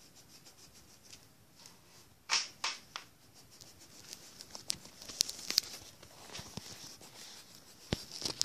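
Coloured pencil scratching on paper in short, quick strokes. About two seconds in come two loud rustles, and after that irregular clicks and rustling as the paper is handled.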